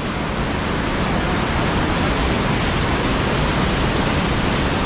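Whitewater rapid: river water pouring over rocks and a ledge in a steady, loud rush that swells slightly in the first second, then holds level.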